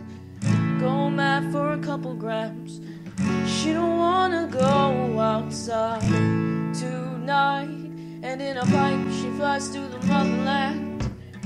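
Background song: an acoustic guitar strummed, with chords struck every second or two, and a voice singing a melody over it.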